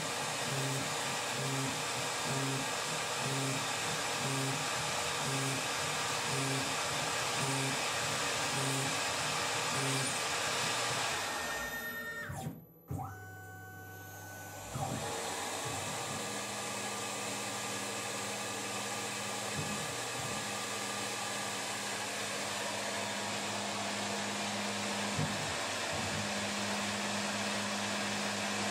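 Tormach RapidTurn lathe attachment on a CNC mill turning a part: a steady machine whir with a regular low pulse about twice a second for the first ten seconds. The sound drops out briefly near the middle, then goes on as a steady hum with a few clicks.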